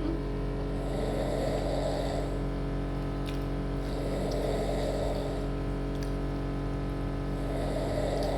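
Snoring, three long snores about three seconds apart, over a steady hum.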